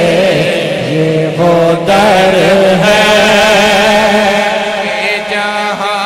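Male voices singing a naat, an Urdu devotional hymn, through handheld microphones, in long held notes that waver with vibrato.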